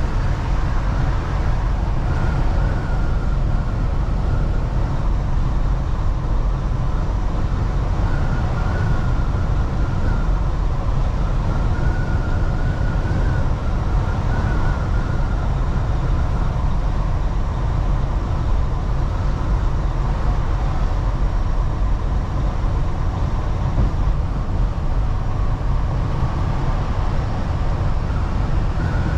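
Semi tractor-trailer driving: a steady low engine and road rumble, with a faint high whine that comes and goes several times.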